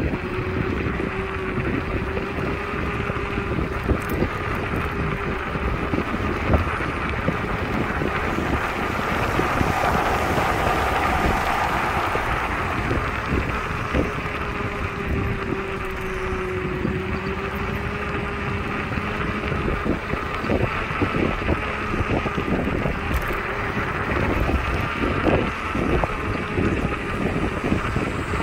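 Kaabo Wolf Warrior electric scooter riding along a concrete footpath: a faint motor whine that wavers slightly in pitch, under steady wind noise on the microphone and frequent small knocks and rattles from the ride.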